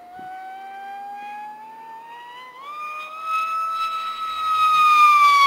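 Electric motor and pusher propeller of a Multiplex Funjet RC jet on a six-cell setup, whining in a fast pass: the pitch climbs, jumps up once, swells to its loudest, then starts to drop as the model goes by.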